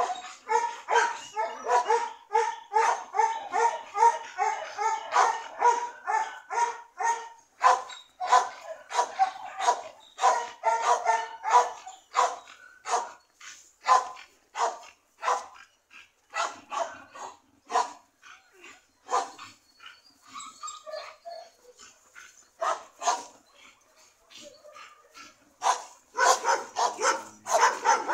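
A dog barking over and over in quick, sharp barks, two or three a second at first, thinning out in the middle with a lull of a few seconds, then fast again near the end.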